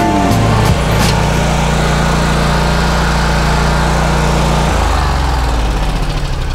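Toro GrandStand 52 stand-on mower engine running steadily, with a short click about a second in. About three-quarters of the way through, the engine speed drops to a lower, pulsing note.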